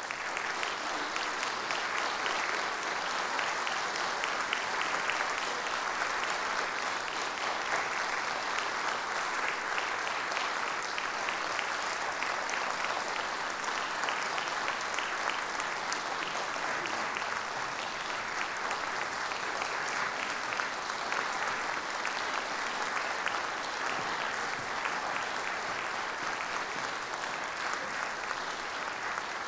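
Concert audience applauding, a dense, steady clapping.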